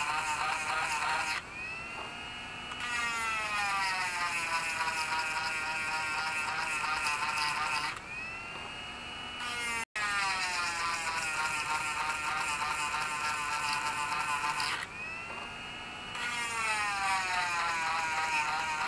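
High-speed rotary tool (Dremel) with a sharpening stone grinding chainsaw chain teeth blunted by a rock. The high whine drops in pitch and a grinding hiss sets in each time the stone bears on a tooth. Twice the stone is lifted off for a second or so and the whine speeds back up.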